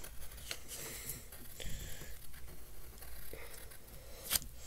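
Pencil scratching on paper in short strokes, with faint rustling of a hand on the sheet and one sharp tap near the end.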